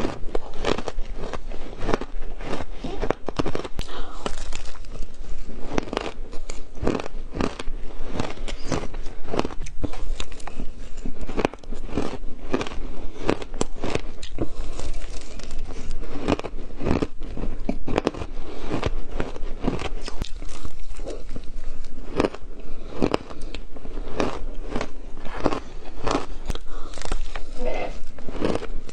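Close-up crunching and chewing of frozen shaved ice, a rapid run of sharp, crisp crunches as each mouthful is bitten and ground.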